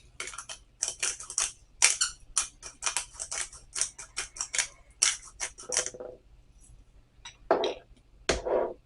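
Pepper grinder being twisted over a bowl of seasoning oil: a quick run of crisp grinding clicks lasting about six seconds, followed near the end by two duller, longer sounds.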